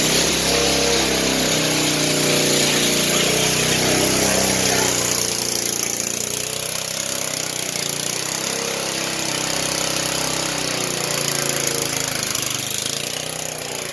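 Small engine of a Sears Lil' Poppy riding mower running on a carburetor swapped over from an Ariens mower, its speed rising and falling.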